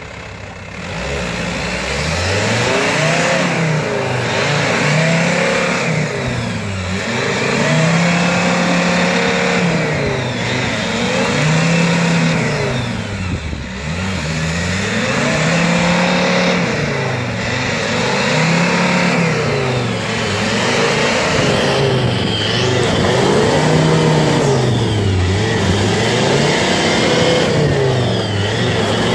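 Volkswagen Touareg's engine revving up and dropping back again and again, about every three seconds, as the SUV tries to drive out while its wheels are bogged deep in mud.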